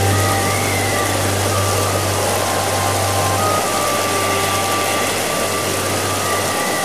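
Storm sound effect: steady heavy rain and wind with a deep continuous rumble, and a few held musical notes underneath.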